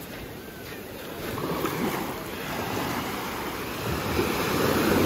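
Small ocean waves breaking and washing up the sand at the water's edge, the surf swelling louder about a second and a half in and again near the end.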